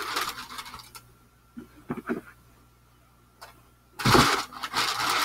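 White wrapping crinkling and rustling as it is handled: a short burst of rustling at the start, a couple of brief rustles about two seconds in, then louder, continuous crinkling from about four seconds in.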